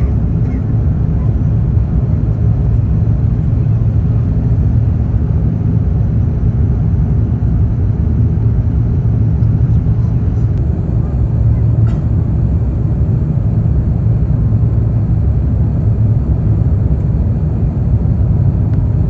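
Steady low rumble inside the cabin of an Airbus A350-900, the engines and airflow heard as an even drone.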